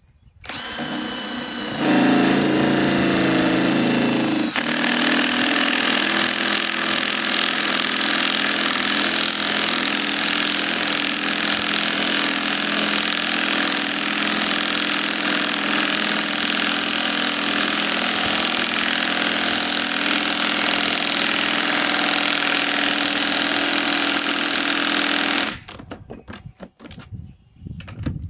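Cordless Hercules Gen 2 compact impact wrench driving a fastener in under heavy load. The motor whines up, then it hammers continuously for over twenty seconds, and it stops near the end with a few short trigger bursts.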